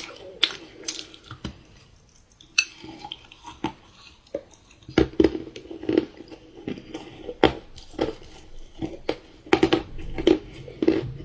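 Someone chewing and biting dark chocolate pie, with sticky, wet mouth sounds and sharp clicks; from about halfway the chewing comes in quick, regular bites, roughly two a second.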